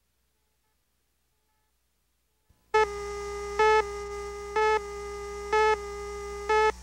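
Silence for almost three seconds, then a video countdown leader starts: a steady tone with a louder beep about once a second, five beeps in all, marking the countdown numbers.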